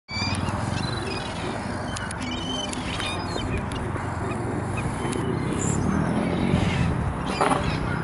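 Seagulls calling in short, repeated cries, most of them in the first couple of seconds, over a steady low rumble.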